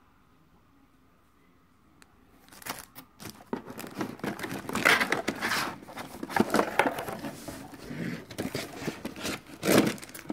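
Clear plastic packaging crinkling and rustling in irregular bursts as a boxed item in a plastic bag is handled, starting about two and a half seconds in.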